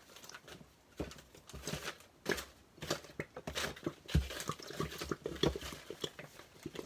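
Irregular clicks, taps and rustling of small objects and containers being handled and rummaged through, with a few heavier knocks partway through.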